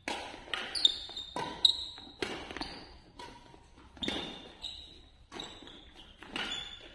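Badminton doubles rally: a quick run of sharp racket hits on the shuttlecock mixed with shoe squeaks and footfalls on the court floor, about one to two impacts a second, in a reverberant hall.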